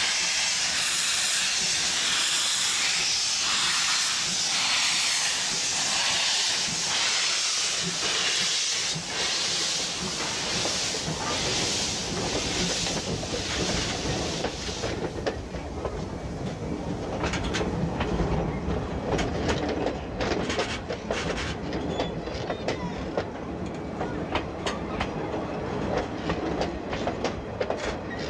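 C11 steam tank locomotive pulling away from a standstill, with a loud hiss of steam from its open cylinder drain cocks and rhythmic exhaust chuffs. About halfway through the hiss dies away and the passenger coaches roll past, their wheels clicking over the rail joints.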